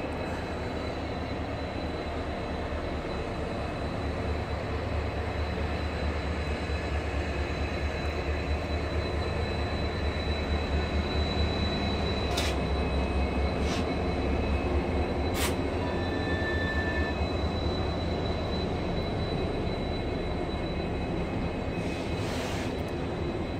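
Freight train rolling slowly past. The diesel locomotive's engine rumble is loudest about halfway through, and the freight cars keep rolling after it. A thin high wheel squeal runs throughout, and a few sharp clicks come from the rails.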